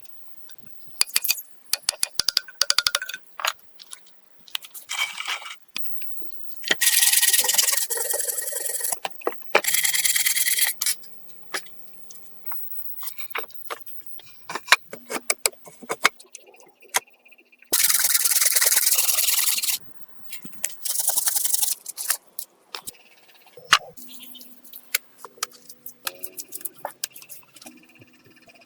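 Clattering, scraping and knocking, as of materials or tools being handled, with four bursts of harsh scraping noise, each one to two seconds long.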